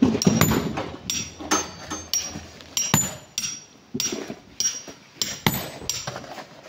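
Hand hammer blows on rock, about two a second, each a sharp strike with a faint metallic ring: rock being broken up by hand.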